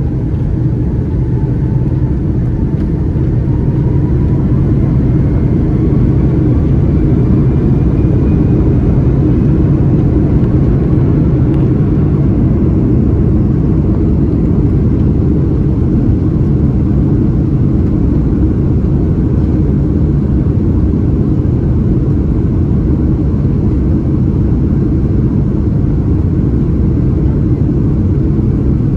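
Rolls-Royce Trent 700 engines of an Airbus A330-343 heard from inside the cabin: a loud, steady rumble, with a whine that rises in pitch and grows louder over the first ten seconds as the engines spool up.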